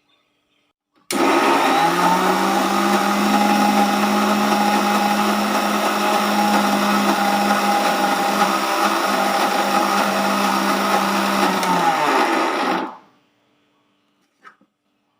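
Mixer grinder motor switched on about a second in and running steadily with a whine. It is switched off near the end and quickly spins down. A small click follows.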